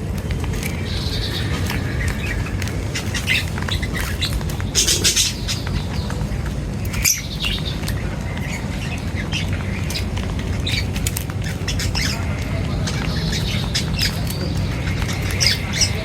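Birds squawking and chirping in many short, sharp calls, thickest about five seconds in and near the end, over a steady low rumble.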